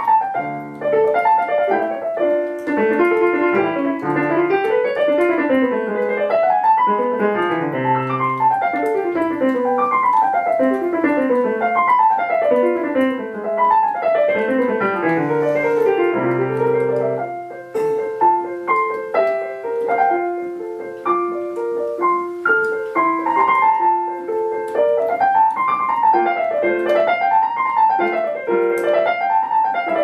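Background piano music: flowing runs of notes rising and falling in arpeggios, thinning to a sparser passage a little past the middle before the runs return.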